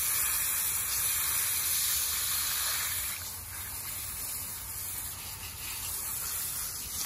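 A fine shower of water hissing onto potting soil in a pot of cuttings. It softens about three seconds in.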